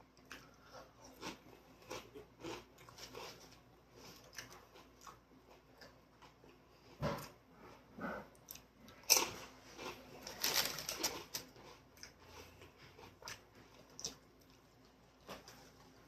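A person chewing food close to the microphone: quiet irregular chewing and mouth clicks, with a louder crackling burst about nine to eleven seconds in.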